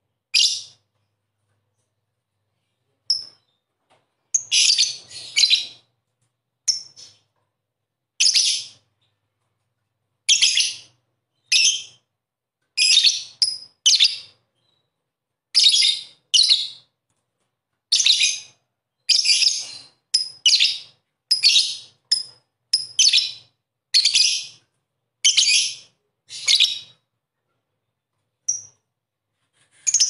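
Lovebird giving shrill, chattering calls in short bursts, roughly one a second, with silent gaps between them.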